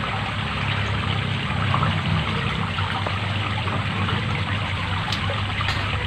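Water trickling and running steadily, with a low steady hum underneath.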